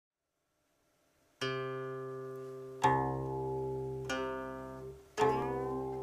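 Chinese zither plucked: four low notes about a second apart, each ringing and fading, the last with a sliding bend in pitch.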